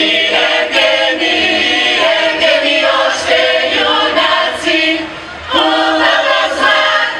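Mixed choir of women and men singing a Bulgarian folk song a cappella, in long held notes in close harmony. About five seconds in there is a short break between phrases before the singing starts again.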